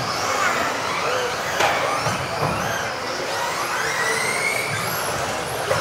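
Several modified-class 1/10 RC off-road buggies racing, their electric motors making high whines that rise and fall as the cars speed up and brake. Two or three sharp knocks, one about a second and a half in and one near the end, with hall echo.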